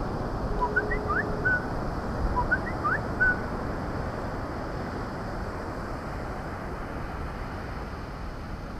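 Wind buffeting the microphone in a steady rumble, with two short bird calls of quick rising chirps in the first few seconds.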